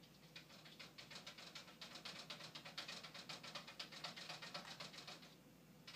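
A cat scratching and pawing rapidly at a kitchen drawer, its claws making a fast run of light scratching clicks. The clicks stop briefly near the end.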